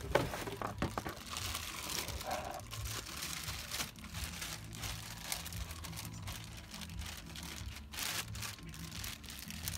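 Rustling and many short light clicks as a cold air intake's filter and plastic housing are handled and turned over by hand.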